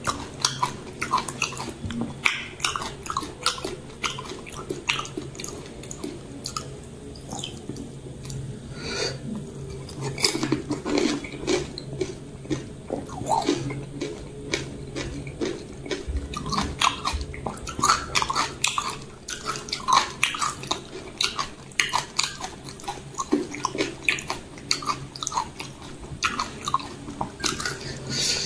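Close-miked eating of pani puri: crisp puri shells crunching and wet chewing, with many sharp irregular clicks.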